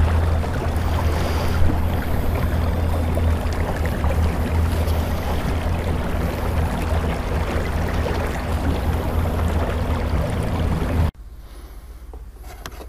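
Small boat under way, its Minn Kota electric trolling motor humming steadily under the rush of water and wind. The sound cuts off abruptly near the end, leaving only a much quieter faint hiss.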